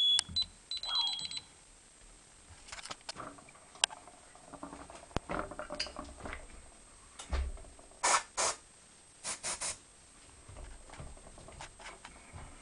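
A wireless smoke detector's alarm sounds its last high beeps and stops within the first second and a half. Then come handling clicks and short hissing spray bursts from an aerosol can, two about eight seconds in and three quick ones about a second later.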